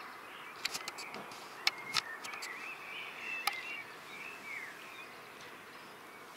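Small garden birds chirping and twittering against a steady outdoor hiss, with several sharp clicks in the first few seconds.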